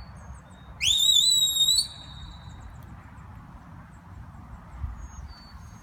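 A handler's whistle command to a herding dog: one sharp whistle about a second in that rises quickly, then holds steady for about a second before fading.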